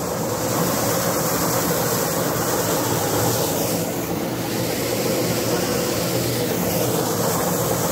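Paddy threshing machine running steadily, its spinning drum stripping rice grain from bundles of stalks held against it.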